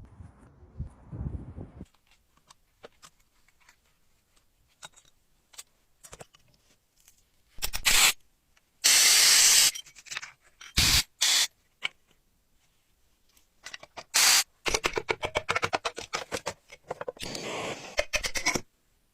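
Intermittent workshop noises from restoration work on a bicycle: scattered small clicks, a few short hissing bursts with one longer one about halfway through, then a run of quick, rhythmic scraping strokes near the end.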